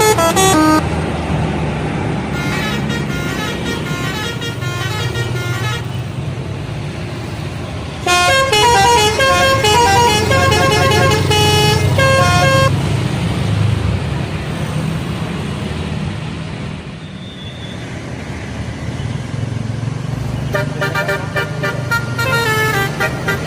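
Indonesian bus 'telolet' horn: a multi-trumpet musical horn playing quick runs of changing notes, in bursts that are loudest about a third of the way in and return near the end. A bus engine's low rumble runs underneath.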